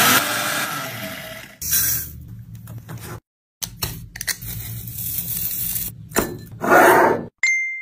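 A run of short kitchen sounds: crushed cornflakes crunching and rustling, and an ice-cream scoop and hands scraping and clinking against glass dishes. The sounds are broken by two abrupt silent cuts, and a brief clink rings near the end.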